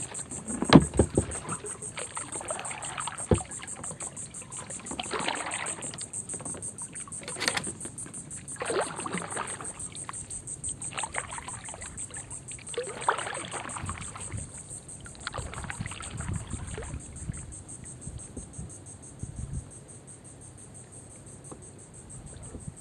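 Kayak paddle strokes dipping and splashing in the creek water every few seconds, over a steady high, fast-pulsing insect trill from the marsh. A sharp knock about a second in, like the paddle striking the hull, is the loudest sound.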